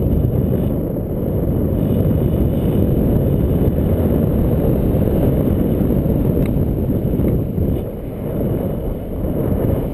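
Airflow buffeting the camera microphone as a tandem paraglider glides in to land, a loud steady rumble of wind noise that eases slightly near the end as they touch down.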